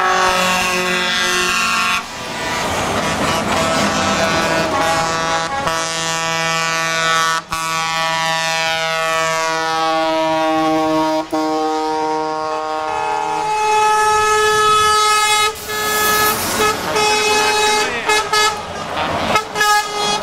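Multi-tone truck air horns sounding a chord almost without pause as trucks in a convoy drive past, with a few brief breaks. Through the middle the chord slides slowly down in pitch as its truck goes by, and another horn chord sounds near the end.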